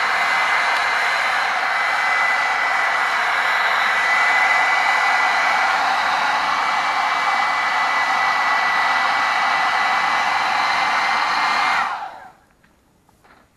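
Old hairdryer blowing air into a coal fire, running steadily with a thin high whine over the rush of air. About twelve seconds in it stops and quickly winds down, and a faint click follows at the very end.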